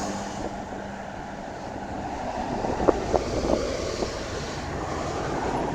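ATR 72-600 turboprop airliner's engines droning during its takeoff, heard from a distance under heavy wind buffeting on the microphone.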